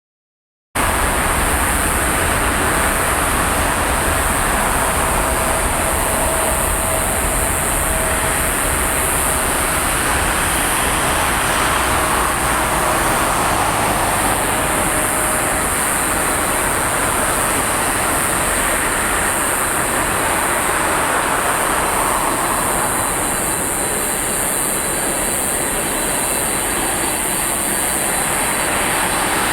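Boeing 747-400 jet engines running, a loud steady rush with a low rumble and a high whine, starting abruptly just under a second in.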